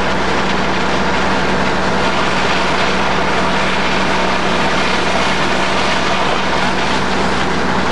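Fire engine pumper running steadily while supplying water to its hose lines: a constant, unchanging engine drone with a low hum.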